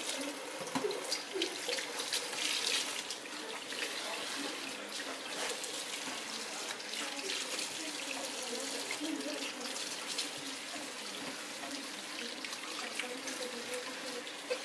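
Kitchen tap running into a stainless steel sink while tomatoes, peppers and eggplants are rinsed by hand under the stream, water splashing off hands and vegetables.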